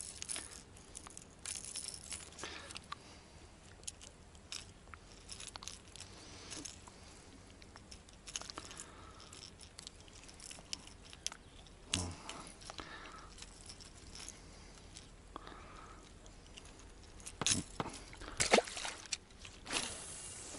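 Fishing tackle being handled in an inflatable boat: scattered small clicks and rattles, with a few louder knocks about twelve seconds in and again near the end.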